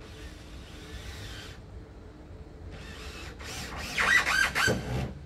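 Cordless drill driving screws into wooden boards: one run of the motor, a pause, then several short, louder bursts with a wavering whine as the screws are driven home.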